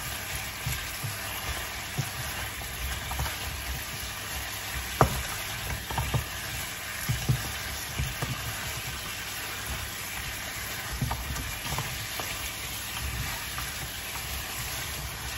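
Pork ribs sizzling in a fish-sauce glaze in a nonstick frying pan as they are stirred and turned with chopsticks and a spatula, with scattered clicks and knocks of the utensils against the pan. The sauce is being cooked down until the liquid is gone.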